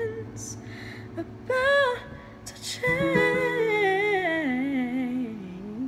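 A woman singing a slow melody over held accompaniment notes: a short phrase, then, as a fresh chord is struck about three seconds in, a long line that falls steadily in pitch.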